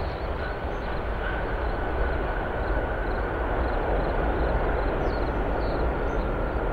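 Boeing 747 jet engines running during the landing rollout just after touchdown: a steady rushing roar with a deep rumble and a faint steady whine.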